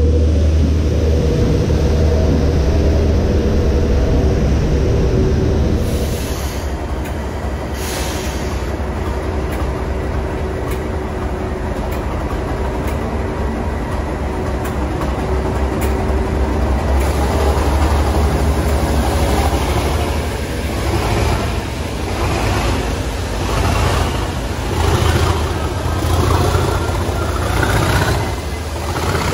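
English Electric Class 37 diesel locomotives running: a deep, steady engine throb from their V12 diesels as the railhead treatment train passes and moves along the platform. Near the end the sound swells and dips, with higher whining tones rising in pitch as the locomotive works past.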